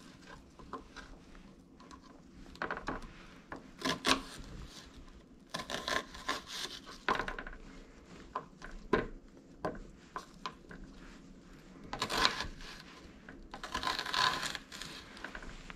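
Kitchen knife cutting up an onion on a plastic cutting board: irregular taps of the blade against the board between short slicing strokes, with a few longer strokes near the end.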